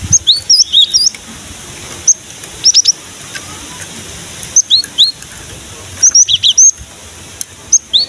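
Cinereous tit (gelatik batu) calling: short, sharp, high-pitched chirps, singly or in quick runs of up to about six, every second or two.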